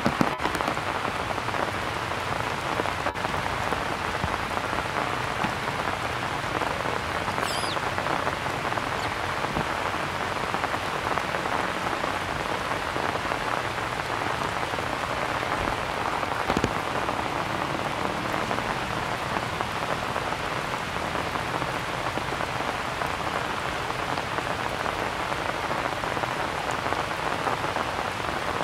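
Steady rain falling on stone and grass: an even, continuous patter and hiss. A faint short high-pitched call rises and falls once, about seven and a half seconds in.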